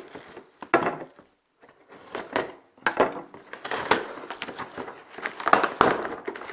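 Corrugated cardboard shipping box being pulled open by hand, its flaps bent and torn: irregular bursts of rustling, scraping and tearing cardboard, with a brief pause just over a second in.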